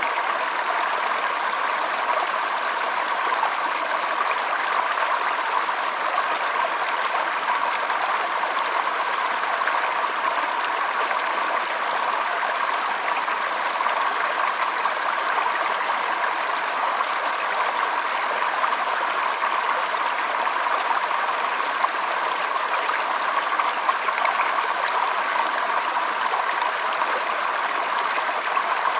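Running water, a stream flowing in a steady, unbroken rush.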